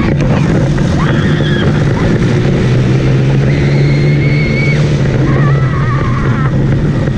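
Go-kart's small gasoline engine running steadily under way, with three high, drawn-out squeals from a child passenger.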